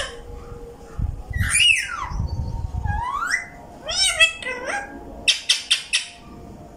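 Caged pet parakeets calling: a falling whistle, then a rising whistle, a short burst of chatter, and near the end a quick run of four sharp squawks.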